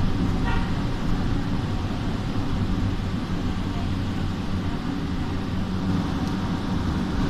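Light rail train running between stations, a steady low rumble of wheels and traction motors heard from inside the carriage.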